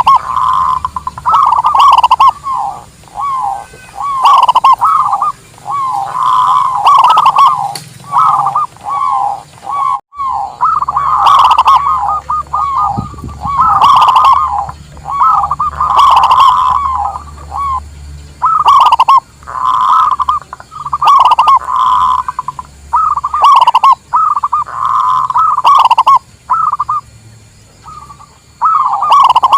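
Zebra doves (perkutut) cooing in quick, staccato, trilling phrases of one to two seconds, repeated almost without pause, with a brief gap near the middle.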